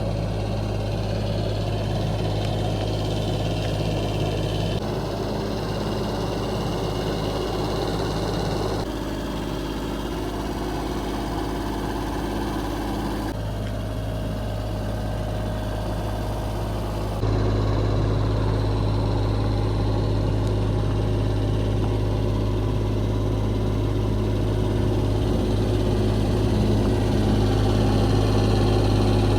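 2022 JCB 16C-1 mini excavator's diesel engine running steadily at idle, heard in several short clips joined together, so the tone and loudness change abruptly a few times and step up louder about two-thirds of the way through.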